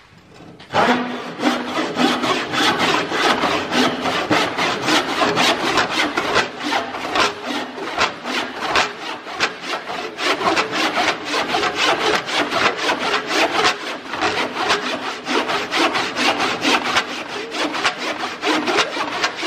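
Freshly sharpened crosscut handsaw cutting across a wooden board in fast, even back-and-forth strokes, starting about a second in.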